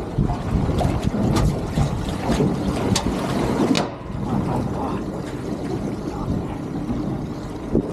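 Wind buffeting the microphone on an open boat at sea, over the wash of water, with a few sharp knocks in the first four seconds.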